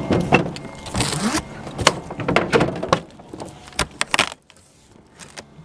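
Large cardboard wheel boxes being handled and their taped flaps pulled open: rustling and scraping cardboard with several sharp knocks, quieter near the end.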